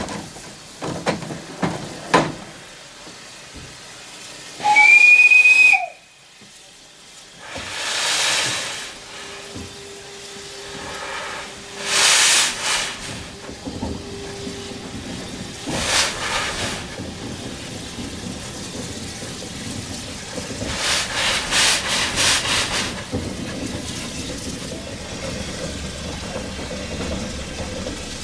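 1910 SLM steam rotary snowplough (Leslie patent) letting off steam: surges of steam hissing, with one whistle blast of about a second about five seconds in, the loudest sound, dipping in pitch as it stops. A few sharp knocks come in the first two seconds, and later there is a couple of seconds of quick rhythmic steam beats, about four a second.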